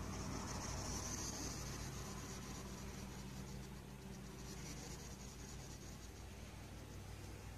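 Faint scratchy rubbing and rustling as a cat's fur brushes over a towel and against a hedgehog's spines, strongest in the first couple of seconds.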